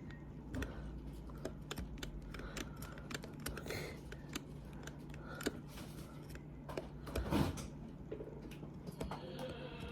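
Irregular small plastic clicks and taps as a toy train's casing and screws are handled and worked loose, with a louder cluster of clicks about seven seconds in, over a steady low hum.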